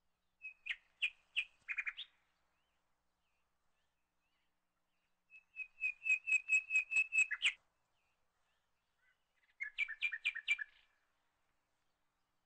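A bird calling in three short phrases of quick repeated chirps, each phrase a second or two long, with pauses of a few seconds between them.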